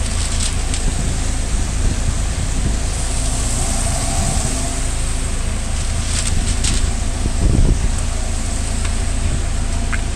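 Steady low drone of a food truck's kitchen exhaust fans running, with a few light clicks and a dull knock about seven and a half seconds in.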